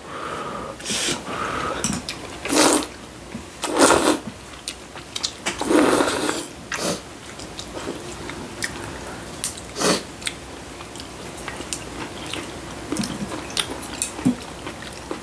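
People slurping kalguksu, knife-cut wheat noodles in broth: about five slurps, most in the first half and the longest about six seconds in, with chewing and small clicks in between.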